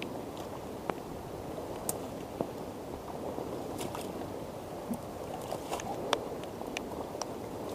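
Footsteps through wet, waterlogged grass and brush, over a steady hiss of wind and rain, with scattered sharp ticks.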